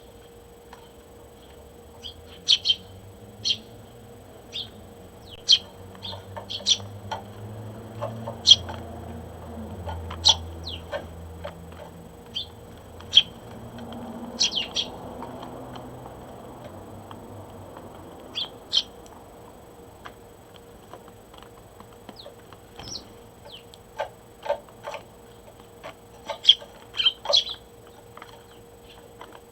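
Eurasian tree sparrows chirping: short, high chirps, some single and some in quick clusters, scattered all through. The chirps are busiest near the start and again near the end.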